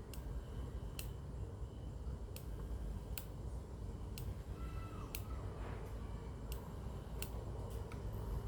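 A series of sharp clicks, roughly one a second and unevenly spaced, over a low steady hum.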